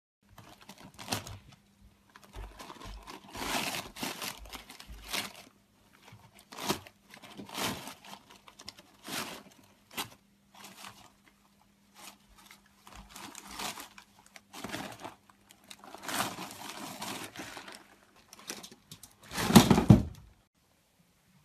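A rabbit rummaging inside a wastebasket full of paper and a plastic bag: irregular crinkling and rustling of plastic and paper, with the loudest burst of rustling near the end.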